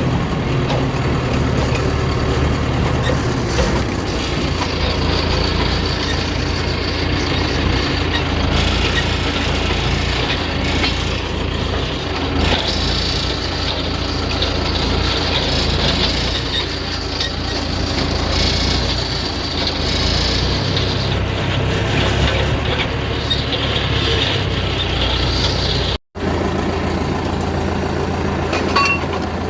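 Farm tractor engine running steadily while driving, with a rough clattering noise over it. The sound cuts out for an instant near the end.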